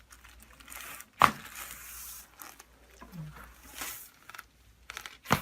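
Two sharp cracks on a chiropractic treatment table: a very loud one about a second in and another near the end, with rustling of the patient shifting in between. The cracks are joints releasing under adjustment, a joint that was locked up.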